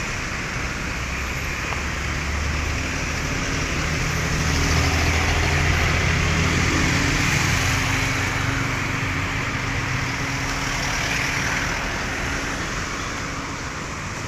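Street traffic noise with a motor vehicle's engine running close by, its low hum building up for a few seconds, strongest through the middle, then fading again.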